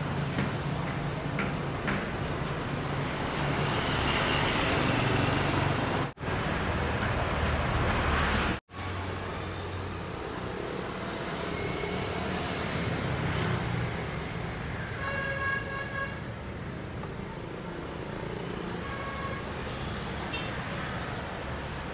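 Street traffic noise: a steady hum of passing motorbikes, dropping out for an instant twice in the first half.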